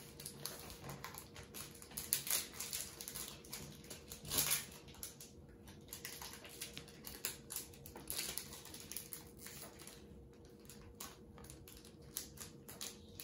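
Baseball cards being handled: irregular soft rustling, flicking and small clicks of cards being leafed through and laid on a wooden table, with a brief louder rustle about four seconds in. A faint steady hum runs underneath.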